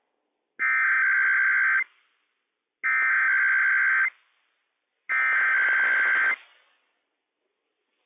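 Three bursts of Emergency Alert System SAME header data from a NOAA Weather Radio broadcast, each a little over a second long, with short silences between: the digital data tones that encode and open a Required Weekly Test alert.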